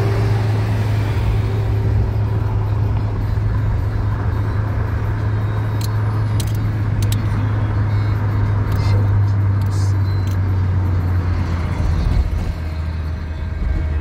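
Car engine and road noise heard from inside the moving car's cabin: a steady low drone that drops a little lower in pitch about twelve seconds in.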